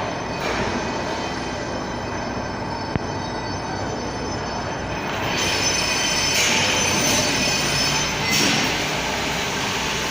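Fabric welding machine running: a steady mechanical din with a thin whine in it, a single click about three seconds in, and brief hissy surges later on.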